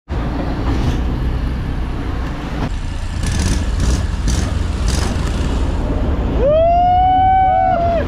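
Amphibious tour vehicle moving, with a loud low engine rumble and wind on the microphone. Near the end a high tone rises and then holds for over a second, followed by a shorter second one.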